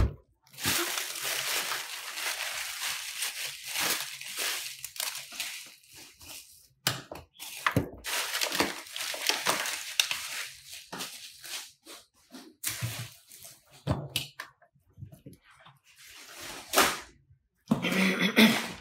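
Plastic wrapping film crinkling and rustling as it is handled, in irregular bursts with a few short gaps.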